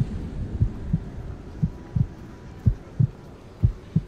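Heartbeat sound: pairs of low thumps, lub-dub, about one pair a second.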